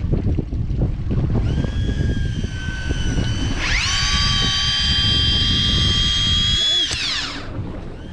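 Electric fishing reel motor winding in line: a high whine that comes in faintly, then speeds up sharply about halfway through, holds steady, and spins down to a stop near the end, over a low rumble of wind and boat noise.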